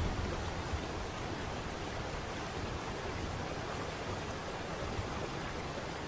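Waterfall: a steady, unbroken rush of falling water.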